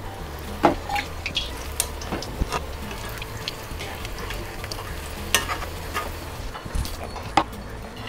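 Batter-coated buns deep-frying in hot oil in a kadai, a steady sizzle. Several sharp metal clinks of a steel slotted spoon against the pan cut through it.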